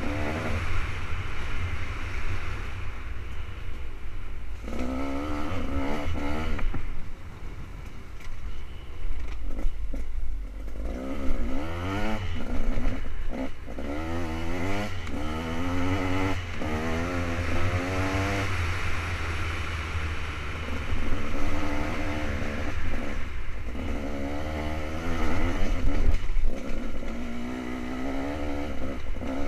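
KTM 200 XC-W two-stroke dirt bike engine being ridden, revving up and falling back again and again as the throttle opens and closes.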